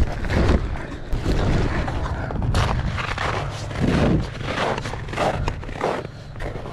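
Nylon fabric of a pop-up ice-fishing tent rustling as it is handled and pulled during setup, with repeated thumps and handling knocks against the microphone.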